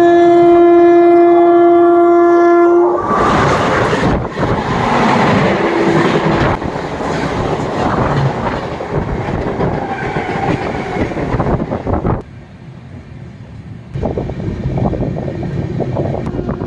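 Train horn sounding one long steady blast for about three seconds, followed by the loud rush and clatter of an express train running at speed on the rails, which dips briefly for a couple of seconds near the end.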